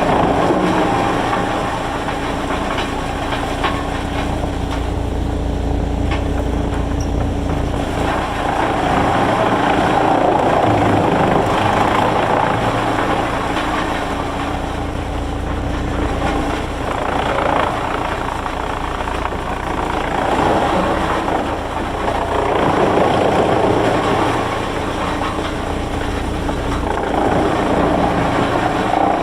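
Heavy machinery running steadily, with a constant low rumble and a hum that swells and eases every few seconds.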